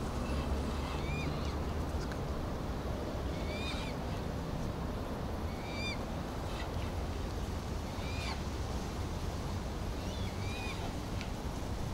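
A bird calling about five times, every two to two and a half seconds, each call a short note that rises and falls, over a steady low rumble.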